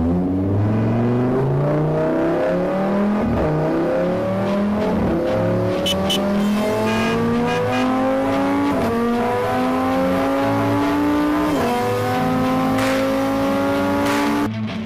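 Car engine accelerating hard through the gears: the pitch rises steadily, drops back at each upshift, and climbs again, several times over.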